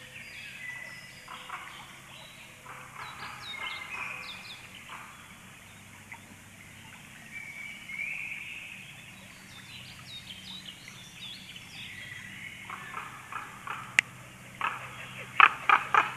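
Songbirds singing and chirping in the forest throughout. From about 13 s a common raven calls as it flies past, giving loud harsh rasping calls, with the loudest near the end, and there is a single sharp click about 14 s in.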